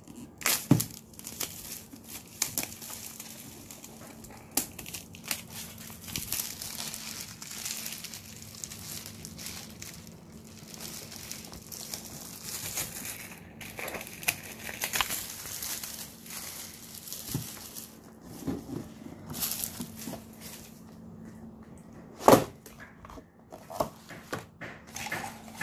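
Plastic shrink wrap being picked at, torn and peeled off a cardboard board-game box, crinkling and crackling in irregular spurts. A single sharp knock stands out near the end.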